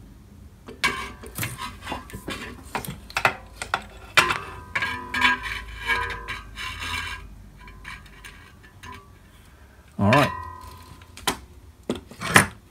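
Metal DRO linear scale being handled and fitted against its mounting bracket on a drill press knee: irregular clicks, knocks and scrapes, some with a short metallic ring. About ten seconds in there is a louder scrape that bends in pitch, followed by a few more knocks.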